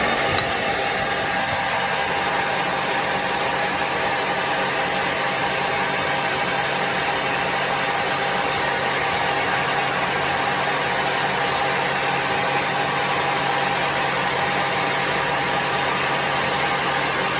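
A workshop machine starts suddenly and runs steadily: a constant loud hiss with a steady hum under it.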